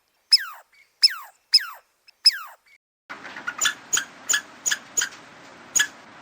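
Four short falling chirp tones, like a cartoon sound effect, then about three seconds in a run of short, high squeaks of a small animal, typical of a squeaking rodent, about three a second over a faint hiss.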